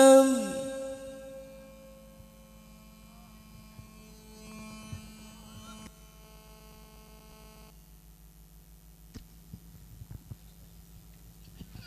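A Quran reciter's long sung note ends and falls away in the first half-second. After it, a steady electrical mains hum runs on, with a few faint clicks near the end.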